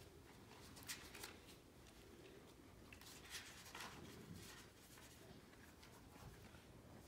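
Near silence: room tone, with a few faint rustles of paper as a book's pages are handled and turned.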